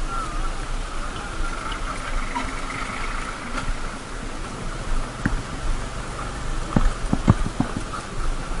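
A motorcycle riding over a rough gravel road, heard on board: steady wind and road rumble over the engine, with sharp knocks and rattles from bumps in the second half.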